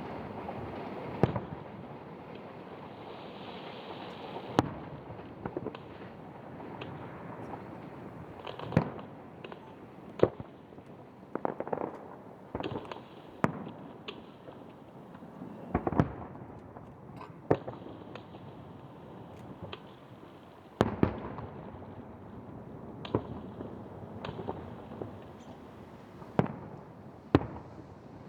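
Aerial fireworks shells bursting overhead: more than a dozen sharp bangs at irregular intervals, some followed by a short echo, over a steady background rumble.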